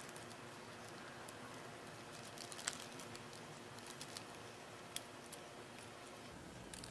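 Faint light clicks and ticks of a thin steel oil-control ring rail being walked by hand into its groove on a Ford 4.0 OHV piston. The two clearest ticks come a little under halfway through and a little past two-thirds of the way in.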